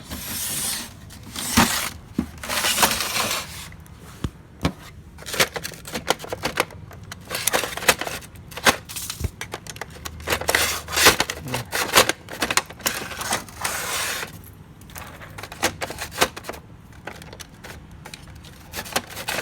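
Jammed paper being worked out of an HP Color LaserJet laser printer by hand: irregular bursts of paper rustling and crackling, with many sharp clicks and knocks from the printer's plastic parts.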